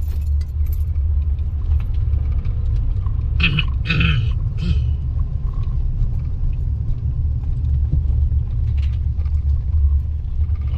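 Steady low rumble of road noise inside a moving car, with a few short higher sounds about four seconds in.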